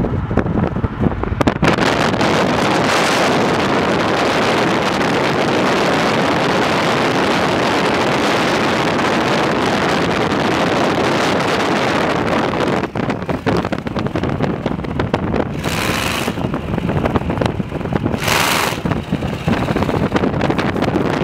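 Wind buffeting the microphone of a camera in a moving car, over the engine and road noise of cars driving alongside. The rushing noise thickens about a second and a half in and holds steady, with two short, sharper rushes of hiss a couple of seconds apart near the end.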